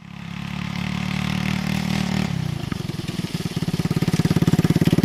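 A 150cc five-speed motorcycle engine on a go-kart runs steadily as the kart approaches. About two and a half seconds in it drops in pitch and settles into a pulsing, uneven idle that gets louder as the kart pulls up. The owner says this engine isn't running right: it acts lean, or might be low on compression.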